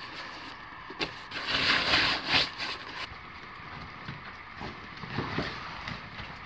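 Canvas backpack and gear being handled and stuffed, rustling and scraping, with a knock about a second in and the loudest rustling soon after, then quieter handling.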